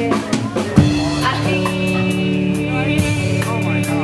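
Live rock band playing without vocals: drum kit with kick, snare and cymbal hits over sustained bass and guitar notes, with one loud drum hit about a second in.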